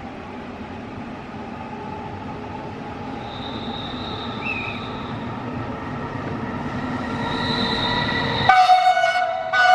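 Italian mainline passenger train approaching, its rumble growing steadily louder with a high thin squeal over it, then sounding its horn in two loud blasts near the end.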